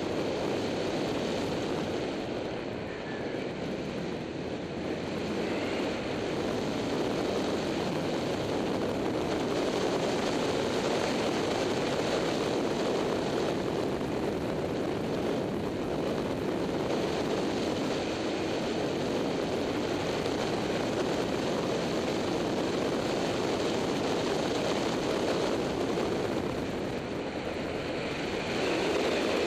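Motorcycle riding at road speed: a steady roar of engine and wind noise on a bike-mounted action camera, dipping slightly a few seconds in.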